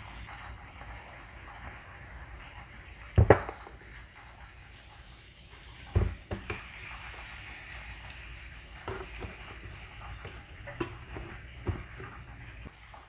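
Metal spoon stirring a honey and soy sauce mixture in a ceramic bowl, clinking against the bowl several times, the loudest clink about three seconds in. A steady hiss of ribs frying in a pan runs underneath.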